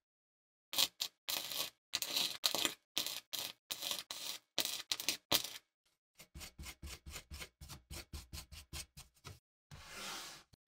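Hand wire brush scrubbing back and forth over the welded steel tang of a knife, in short scraping strokes: slower and louder for the first few seconds, then quicker and even, about four strokes a second. A short steady rush of noise comes near the end.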